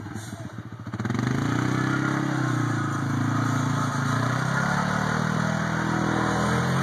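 ATV engine revving as the quad pulls away and rides through the snow: it picks up about a second in, eases off around four seconds in, then revs up again.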